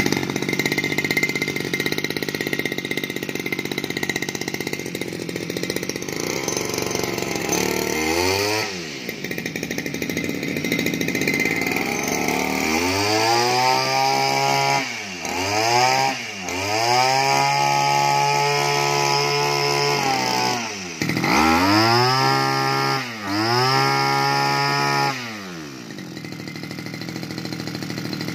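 BG328 backpack brush cutter's two-stroke engine, freshly started and idling, then revved up and let back down several times, each rev held for one to four seconds, before it drops back to idle near the end.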